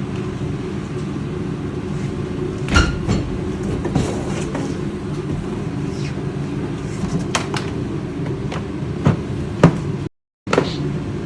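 Scattered plastic clicks and knocks from a Kärcher WD 4 wet-and-dry vacuum's parts being handled during unboxing, over a steady low hum. The sound cuts out briefly near the end.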